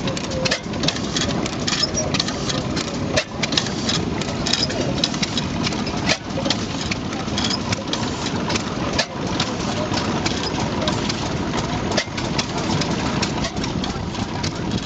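Deutz E3 horizontal stationary gas engine running, with the steady clatter of its exposed valve gear over a low rumble. The sound dips briefly about every three seconds.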